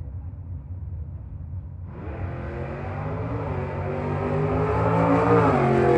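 Drag racing car's engine launching about two seconds in and accelerating hard at full throttle, growing steadily louder, its pitch dropping near the end, over a low engine rumble.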